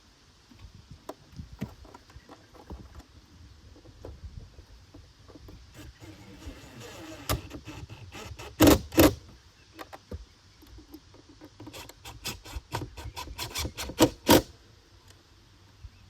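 Tool and hardware noise from tightening a jump seat screw and its lock nut on the seat bracket: scattered clicks, two loud sharp knocks close together about halfway through, then a quick run of clicks ending in two more loud knocks.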